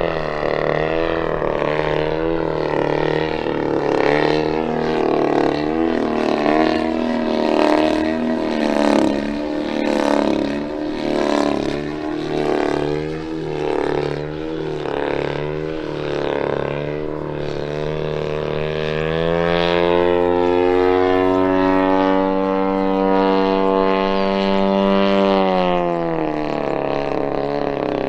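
120cc DA twin-cylinder two-stroke petrol engine of a giant radio-controlled Yak 54 in aerobatic flight. Its note swings up and down about once a second for most of the time, then holds a steady high pitch for several seconds before dropping near the end.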